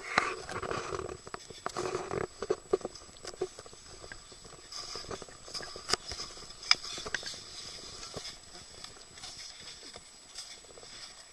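Snow crunching and scraping: a run of uneven crunches and clicks, busiest in the first three seconds and then sparser.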